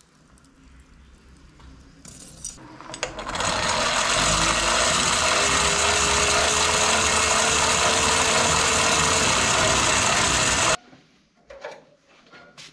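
A power tool's motor spins up and runs steadily with a loud, hissing grinding noise, then cuts off suddenly near the end.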